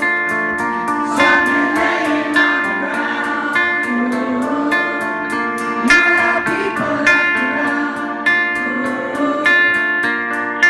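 Live rock band playing a song: electric guitars ringing over a steady drum beat, with a singer's voice.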